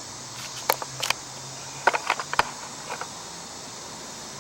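About half a dozen light, scattered clicks and taps from plastic parts being handled while a backpack blower's throttle lever assembly and cable are taken apart, over a faint steady hiss.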